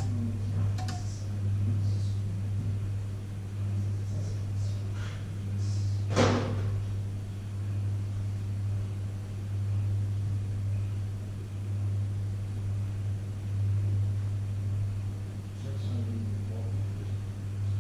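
Panasonic inverter microwave oven running with a steady low hum, and one sharp pop about six seconds in.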